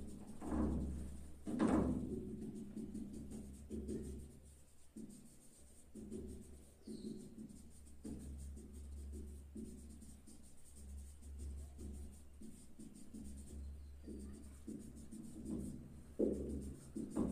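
Marker pen drawing on a whiteboard: a long run of short rubbing strokes, a little louder about two seconds in and near the end, over a steady low hum.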